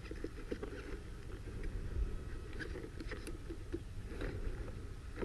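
Electric RC monster truck driving over soft dirt, with scattered small crackles and clicks from the tyres working through soil and debris, under a faint steady whine from its small cooling fan.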